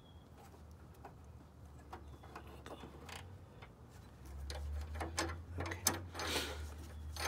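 Light metallic clicks and clinks of two joined combination wrenches on the serpentine belt tensioner bolt as the spring-loaded tensioner is eased back. There are scattered clicks, a few louder ones in the second half, and a low rumble joins about four seconds in.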